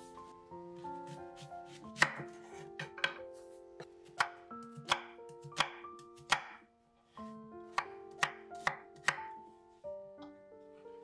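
Chef's knife chopping onion and button mushrooms on a wooden cutting board: sharp, irregular knocks of the blade against the board, starting about two seconds in, with a short pause near the middle. Soft background music plays underneath.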